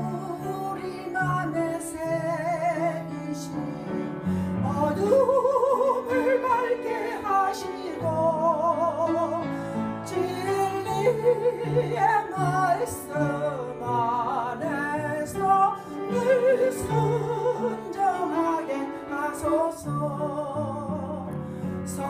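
A woman singing a solo into a microphone in a strong, operatic style with a wide vibrato on her held notes, over continuous instrumental accompaniment.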